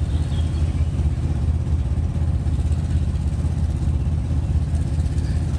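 Vehicle engine running steadily under way, heard from inside the cab: a constant low drone with a fast pulsing beat.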